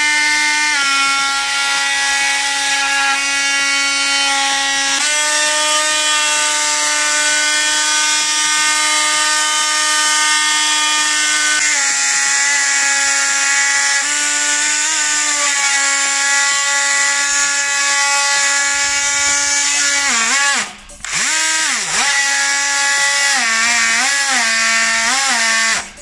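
A cordless multi-tool drill with a reciprocating-saw attachment cuts through a wooden board: a loud, steady motor whine over the blade's rasping. It sags and cuts out briefly about twenty seconds in, then starts again and dips in pitch several times near the end as the blade bogs down in the cut.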